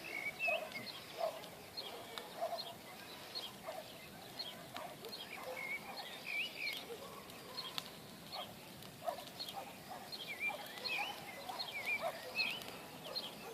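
Birds chirping and calling: many short, high chirps and trills, with lower short calls repeating about once a second.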